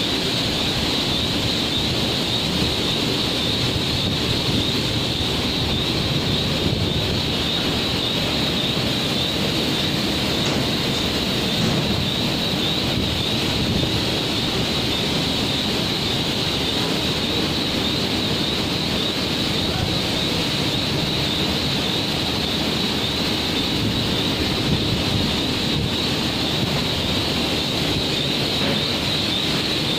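Steady, unchanging machinery din of a garment factory floor, with a constant hiss over a low rumble.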